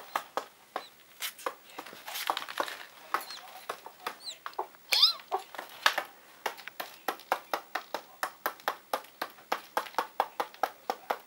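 A chick inside a pipped chicken egg, hatching and calling. It makes short sharp clicking calls that settle into a steady run of about three a second in the second half, with a few high chirps in the middle.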